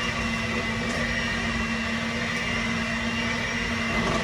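Electric hand mixer running steadily at a constant pitch, beating cake batter.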